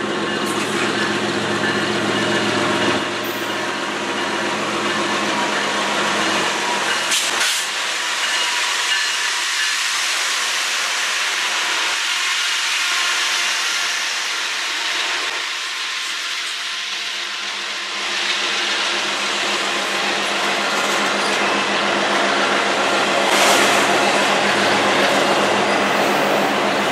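CN diesel-hauled freight train passing close by: the locomotives' engine drone in the first few seconds, then the steady rolling rush of the wheels and autorack cars, with a couple of short clanks.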